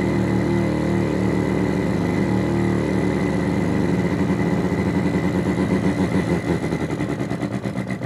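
Artificial engine sound synthesized by two function generators in sweep mode, played through a small speaker: a low buzzing tone with many overtones, and a thin steady high tone underneath. About halfway through, as the knobs are turned, it changes to an uneven throb of roughly three to four pulses a second, like an engine turning over slowly.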